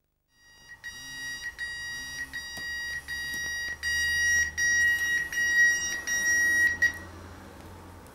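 Digital alarm clock beeping in rapid repeated high-pitched pulses, getting louder, then stopping abruptly about seven seconds in.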